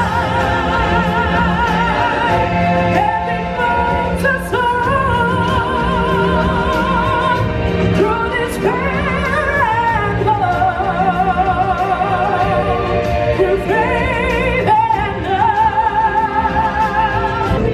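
Live stage-show music over a theatre sound system: a solo singer holding long notes with strong vibrato, over a steady beat.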